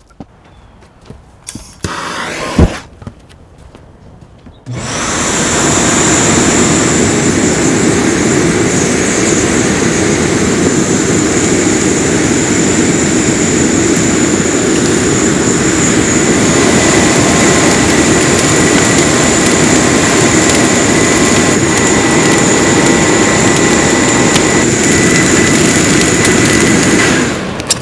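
Electric blower forcing air through a pipe into a charcoal forge, which starts about five seconds in. It runs as a loud, steady rush of air with a constant high motor whine and cuts off near the end. Before it starts there is a short burst and a sharp click.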